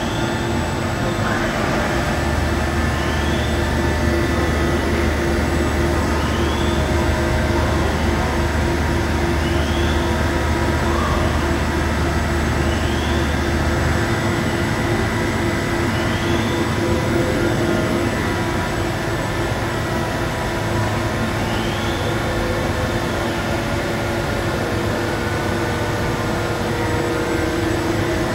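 Deckel Maho DMF 300 Linear CNC machining centre running: a steady mechanical hum with a whine that rises and falls about every two seconds. A deeper drone comes in shortly after the start and stops about halfway through.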